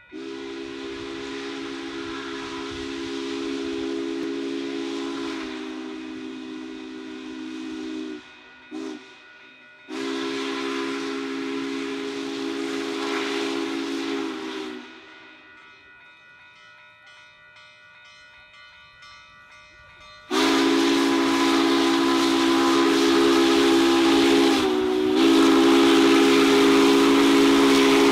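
Union Pacific No. 844 4-8-4 steam locomotive's chime whistle sounding for a grade crossing: a long blast of several notes together, a short toot, a second long blast, then after a quieter gap of about five seconds a third, louder long blast.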